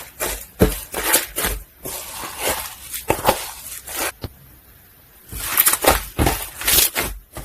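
Soft slime being squished and pressed by hand, giving irregular crackles and pops of air bubbles bursting, several a second, with a pause of about a second a little past the middle.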